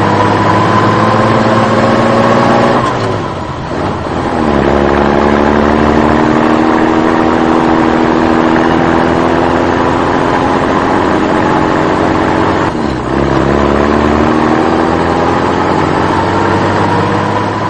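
Motor vehicle engine pulling away and accelerating, its pitch climbing slowly and falling back sharply twice, about three seconds in and again about thirteen seconds in, as at gear changes.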